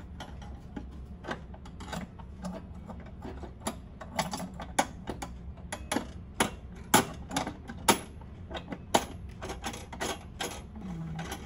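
Stainless steel rotisserie spit and forks of a Baumann Living Multi Air Fryer XR clicking and clinking against the oven's spit mounts as the spit is fitted and latched in place. The clicks are irregular, with the loudest about seven and eight seconds in.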